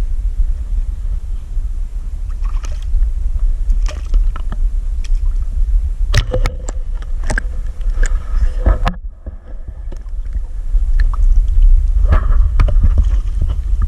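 Wind rumbling on the microphone, with scattered knocks and clicks through it and a short lull about nine seconds in.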